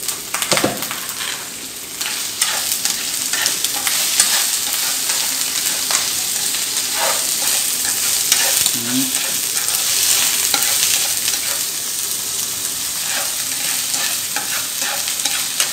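Snails, just added to a hot oiled frying pan with lemongrass and garlic, sizzle steadily as they are stir-fried. Chopsticks and shells make many small clicks against the pan.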